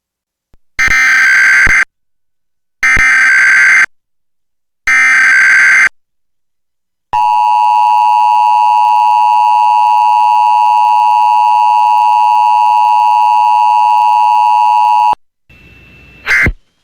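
Emergency Alert System test signal. Three one-second bursts of SAME digital header data, a harsh warbling screech, are followed by the two-tone EAS attention signal (853 and 960 Hz) held steadily for about eight seconds. A short sharp sound comes near the end.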